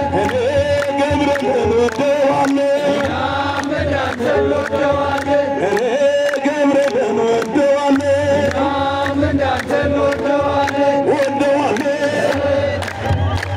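Ethiopian Orthodox Tewahedo hymn chanted by a group of voices in long, wavering held notes, over a steady beaten drum, typical of the kebero.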